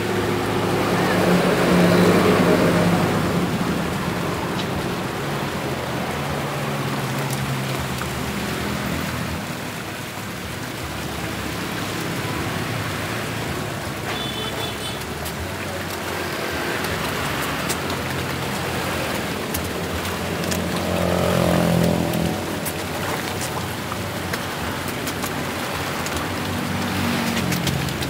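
Koi splashing and churning the pond surface as they crowd in to feed, over a steady wash of running water, swelling louder a few times.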